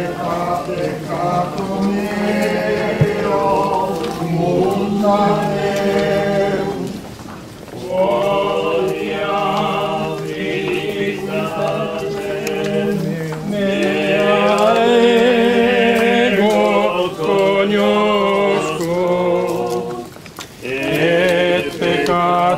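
A group of people singing a religious hymn together, unaccompanied, in slow drawn-out phrases, with two short breaks between phrases.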